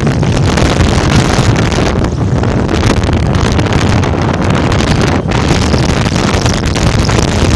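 Loud, steady wind rush over the microphone of a phone filming from a moving vehicle, with the vehicle's running and road noise underneath.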